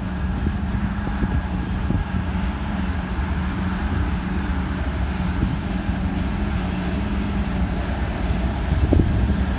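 2M62 twin-section diesel locomotive's two-stroke twelve-cylinder engines running under load as it hauls a freight train, a steady low drone heard from a distance. A gust of wind hits the microphone near the end.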